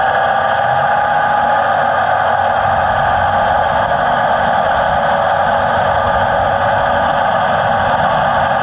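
A radio-controlled model construction machine running steadily, with an even, engine-like drone that does not change.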